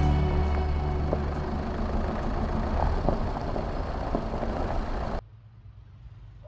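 A car driving slowly across a gravel car park, its engine and its tyres on the gravel making a steady noise, with a held music chord fading out over the first second or so. The sound cuts off suddenly about five seconds in, leaving only quiet outdoor background.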